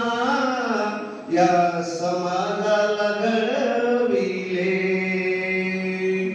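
A man singing solo into a microphone in a slow, chant-like style with long drawn-out notes. There is a brief break about a second in, and a single note held for about two seconds near the end.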